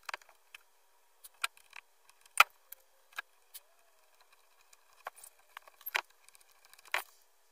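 Small metal tuner screws and open-gear tuner parts being handled, clicking and ticking against each other and the wood. The clicks are scattered and irregular, the loudest about two and a half seconds in.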